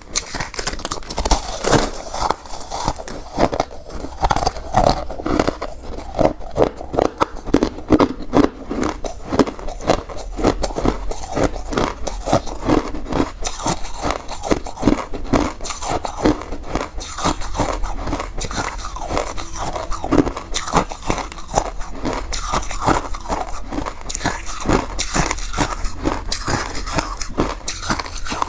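Refrozen crushed ice being bitten and chewed close to the microphone: a continuous run of sharp, crunchy cracks, several a second.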